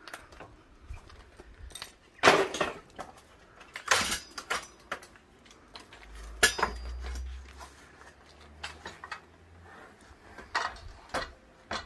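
Wooden boards knocking and clattering as they are handled and set down on a sliding mitre saw's bed: a handful of separate sharp knocks, with no saw motor running.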